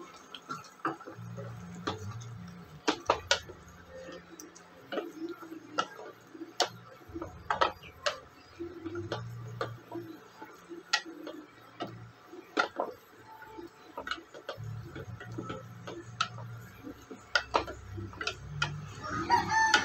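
Wooden spatula stirring a wet mushroom masala in a stainless steel pot, knocking and scraping against the metal in irregular clicks.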